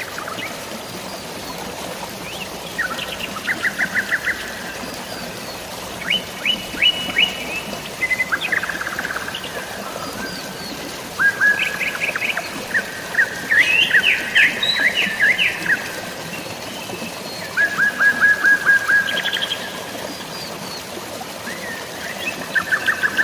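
Birds chirping in quick trilled series every few seconds, over a steady hiss of falling rain and flowing water.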